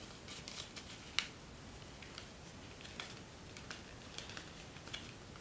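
Faint crinkling and small crackles of folding paper being creased by hand as the tips of an origami cobra are folded down, with one sharper crackle about a second in.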